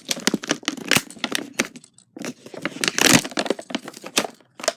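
Toy packaging being torn and crinkled open by hand: a quick run of short ripping and crackling noises, loudest about three seconds in.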